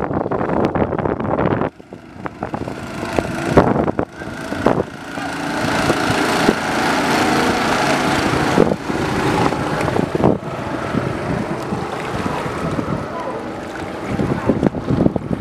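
A narrow wooden motorboat's engine running as the boat passes at speed, building from about two seconds in, holding steady, and easing off near the end.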